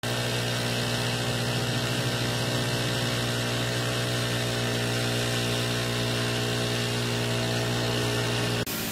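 Small petrol engine of a power sprayer running steadily at working speed, driving the piston pump while the spray gun sends out a jet. The steady hum breaks off abruptly near the end.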